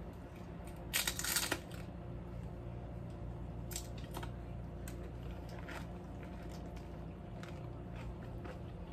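Quiet kitchen handling noises over a steady low room hum: a brief crunchy rustle about a second in, then a few light clicks and taps as a serving spoon is put down and crisp fried tostadas on a cutting board are handled.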